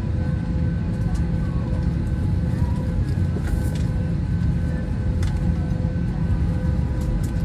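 Steady low engine rumble with a faint steady hum above it and a few light clicks.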